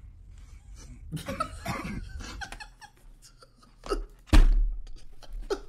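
A man bursting into helpless laughter in short gasping bursts, with a sharp heavy thump a little past four seconds in as he doubles over toward the desk and microphone.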